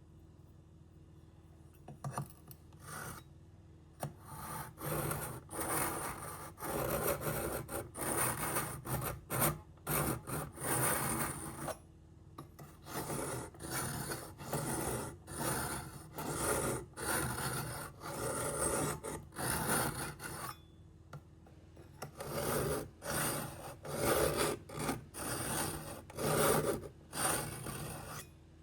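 A knife blade being sharpened, scraped in repeated strokes against an abrasive sharpener, about one or two strokes a second, with a brief pause about three-quarters of the way through.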